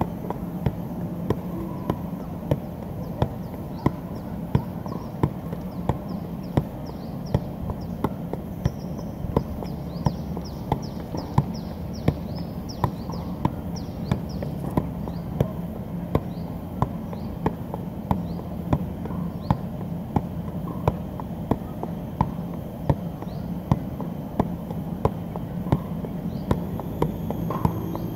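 Soccer ball being juggled by foot without a break: a steady run of sharp thuds, about one and a half kicks a second, over a low background hum.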